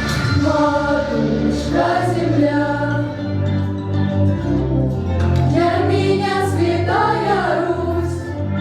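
A school vocal ensemble singing a song together over instrumental accompaniment with held bass notes.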